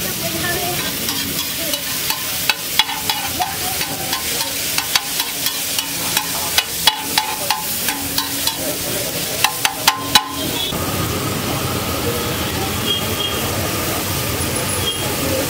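Egg and tomato mixture sizzling on a large flat street-food griddle, with a spatula clacking against the griddle in quick strokes for most of the first ten seconds, then steady sizzling alone.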